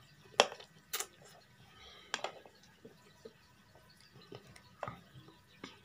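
A person eating ramen noodles with chopsticks: several short, sharp clicks and smacks, the loudest about half a second in and another at one second, with quiet chewing between them.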